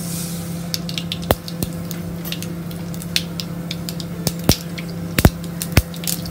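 Mustard seeds sizzling in hot coconut oil, then popping in irregular sharp cracks that come more often and louder toward the end: the seeds bursting as they fry, the tempering stage for a Kerala curry.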